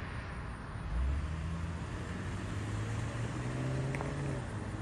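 A motor vehicle's engine over a steady outdoor rumble. Its low engine note comes in about a second in and rises in pitch towards the end, with a short click near the end.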